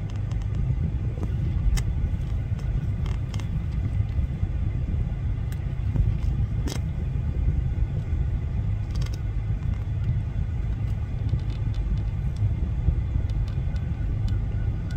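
Steady low rumble of an idling car engine, with a few faint clicks and taps scattered through it.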